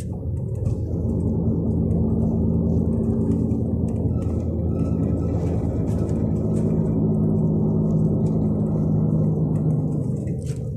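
360 hp MAN diesel engine of a MAN Lion's Regio coach running steadily under way, heard from on board the coach as an even drone; it drops a little in level near the end.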